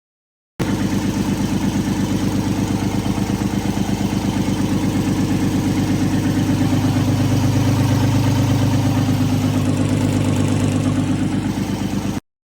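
Car engine running at a steady idle with an even pulsing beat, swelling slightly about halfway through. It cuts in and out abruptly.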